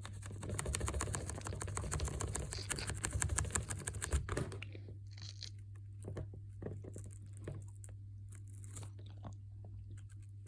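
Close, rapid scratching and rubbing clicks, dense for about four and a half seconds and then scattered, over a steady low hum: things being handled right against the microphone.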